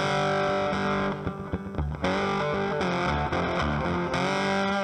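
Background music led by distorted electric guitar, with sustained and bent notes over a low bass line; it drops briefly about a second in.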